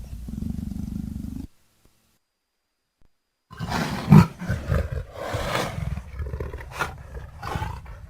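Sound-designed Dryptosaurus roar made by layering dinosaur, lion and 'infected' creature roars. A low growl trails off about one and a half seconds in, then after two seconds of silence comes a string of choppy roars and growls, the loudest peak about four seconds in.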